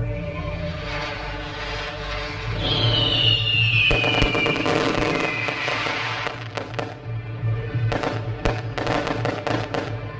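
Fireworks going off over background music, with a falling whistling tone about three seconds in and a rapid run of sharp crackling from about eight seconds.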